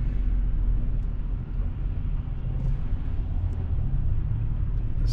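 Steady engine and road rumble heard inside the cab of a truck cruising at highway speed while towing a boat trailer.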